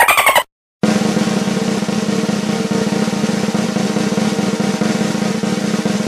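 A fast, steady snare drum roll starting just under a second in and running on without a break. Before it, the end of a different effect, rapid pulses with a falling tone, cuts off sharply about half a second in.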